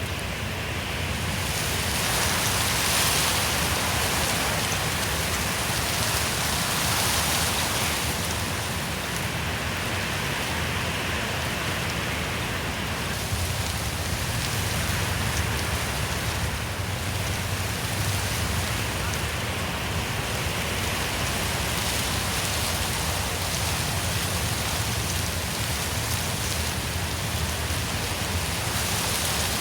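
Wind blowing through forest trees, a steady rushing of leaves and branches that swells in gusts a couple of seconds in and again around seven seconds.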